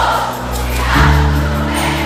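Live band playing, with a large crowd singing along in unison over sustained keyboard and bass notes; the chord changes about a second in.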